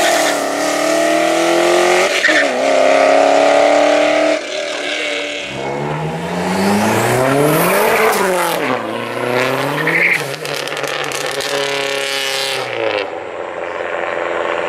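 A Pontiac GTO's V8 accelerating hard away, its pitch climbing, dropping at an upshift about two seconds in, then climbing again. Then a Dodge Neon SRT-4 accelerates past, its engine pitch rising and falling through shifts, until the engine sound drops away near the end.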